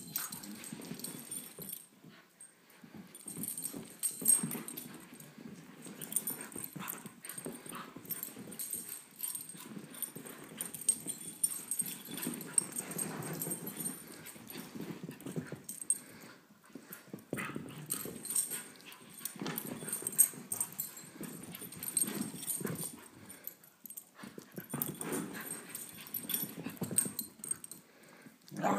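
A Beagle mix and a Great Pyrenees puppy play-fighting: irregular scuffling, footfalls and clicks of paws on the rug and floor, mixed with the dogs' own play noises, in uneven bursts with short lulls.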